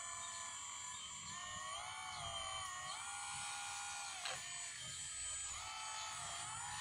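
Electric hydraulic pump of an RC Kobelco SK200 model excavator whining as the boom, arm and swing work, its pitch dipping and rising several times with the load. A single sharp knock about four seconds in.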